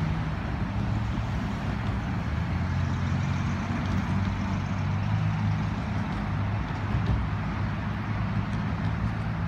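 Freight train's last cars rolling away on the track: a steady low rumble with a hum underneath, no horn.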